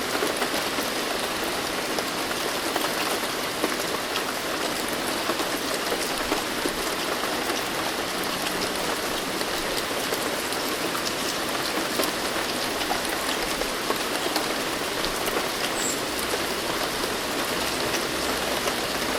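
Steady heavy rain falling, a constant hiss dotted with many sharp individual drop hits.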